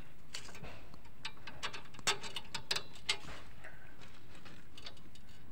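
Light metallic clicks and ticks of a drum-brake rod, its adjuster nut and washer being handled by hand, the sharpest about two and three seconds in.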